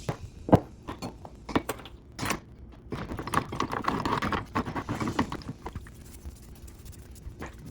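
Hard objects being handled: a few sharp knocks, then a couple of seconds of scraping or scrubbing in the middle, and one more knock near the end.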